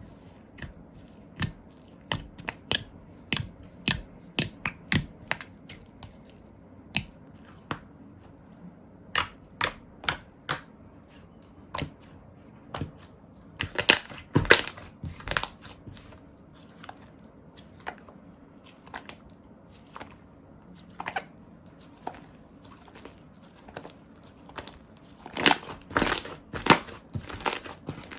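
Slime being pressed and worked by hand, giving off sharp irregular clicks and pops. They come in dense clusters about halfway through and again near the end.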